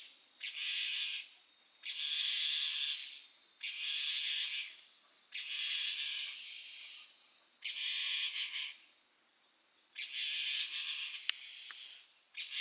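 Mountain bamboo partridge calling: a series of harsh, rasping phrases about a second long, repeated every couple of seconds.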